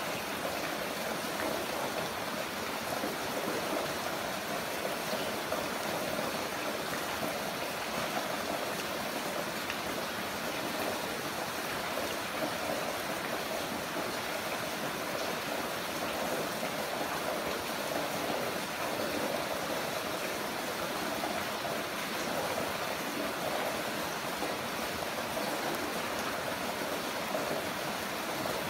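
Heavy rain falling steadily, an even wash of water noise with no distinct drops or pauses.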